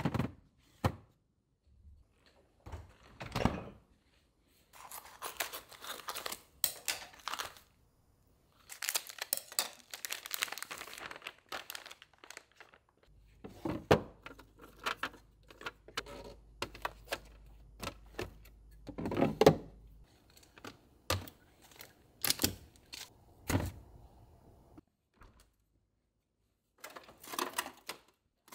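Plastic food-storage containers being set onto refrigerator shelves and into fridge and freezer drawers: a string of separate clunks and knocks, with stretches of rustling and crinkling in between.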